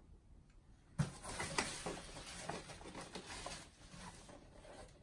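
Plastic bubble wrap and a cardboard box rustling and crackling as a boxed Funko Pop is pulled out of a shipping box. It starts with a knock about a second in and fades near the end.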